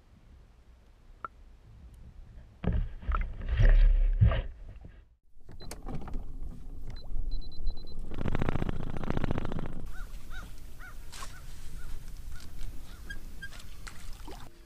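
Water sloshing and splashing around an underwater camera as a chain pickerel is held and let go, then, from about five seconds in, a bow-mounted electric trolling motor turned up and running on high with a steady churning whir.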